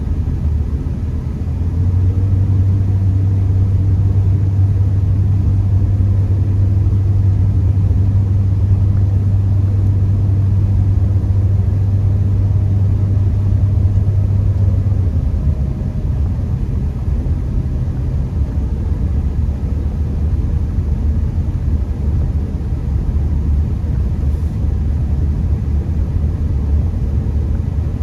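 Honda Accord being driven, heard from inside the cabin: a steady low rumble of engine and road noise. A louder low drone comes in about two seconds in and drops away about fifteen seconds in.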